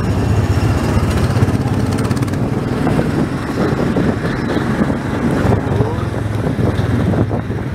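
Small gasoline engine of a go-kart-style ride car running steadily as the car drives along the track.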